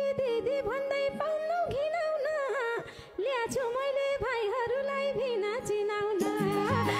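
A woman singing a Nepali dohori folk song into a microphone, a high, wavering, ornamented line with no clear words, over low held accompaniment notes. A rhythmic beat of accompaniment comes in near the end.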